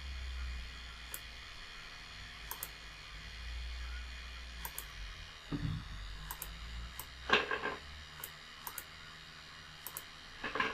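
Computer mouse clicking every second or so, some as quick double clicks, over a faint low hum. A few louder brief soft noises come between the clicks, the loudest about seven seconds in.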